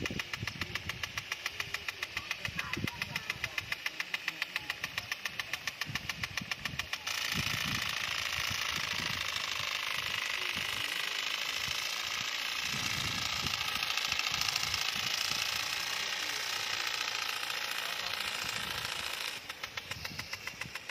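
Rain-gun sprinkler throwing its water jet, the spray coming in rapid even pulses. About seven seconds in the sound turns into a steady, louder rush of water as the spray passes close by, and the pulsing returns near the end.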